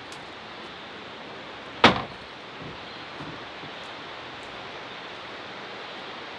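Steady rush of the river beside the cabin, with one sharp knock about two seconds in and a few faint ticks.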